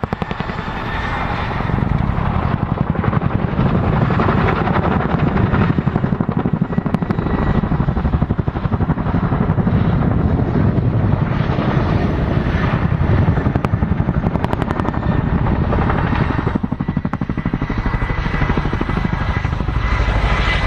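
RAF Boeing Chinook HC2 tandem-rotor helicopter flying, its rotor blades giving a rapid, steady beat. The sound dips briefly near the start and again about three-quarters of the way through.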